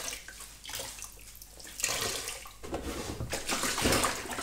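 Water splashing and dripping as a wet mohair knitted jumper is squeezed out by hand over a plastic basin of soapy water, then the basin is tipped and its water pours out into the sink near the end.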